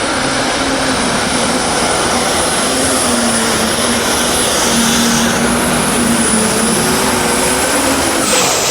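A tractor-pull puller's engine running at full power, loud and steady, with a high whine that glides down in pitch near the end.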